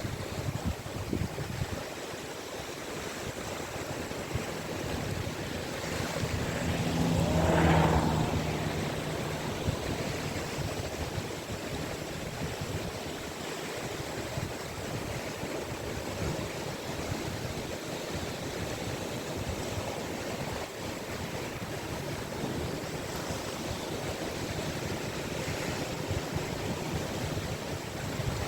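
Caspian Sea surf washing onto a beach in a steady rush, with one wave breaking louder about seven to eight seconds in.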